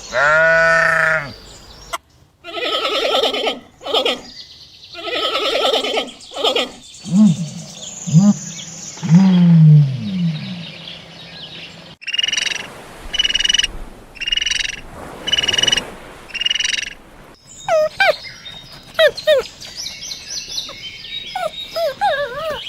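A string of different animal calls cut one after another: a long pitched call at the start, rough noisy calls, a few low calls, then five evenly spaced shrill calls and chirping, gliding bird-like calls near the end.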